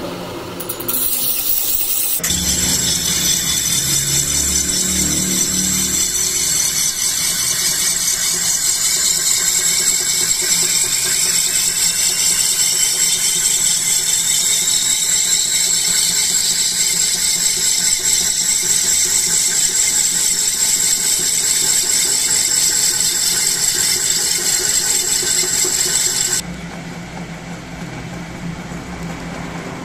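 A sickle's steel blade pressed against a motor-driven spinning steel disc, a steady high-pitched squeal of metal on metal that starts about two seconds in. About 26 seconds in the squeal stops, leaving only the electric motor and spindle running with a lower hum.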